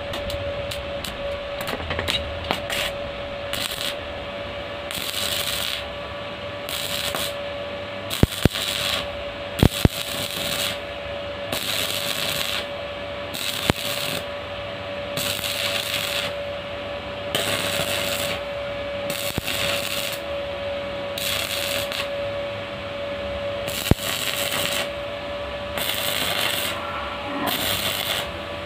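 Stick (arc) welding: the arc crackles and sizzles in irregular surges while a weld bead is laid. A steady hum runs underneath, and a few sharp clicks come about a third of the way in.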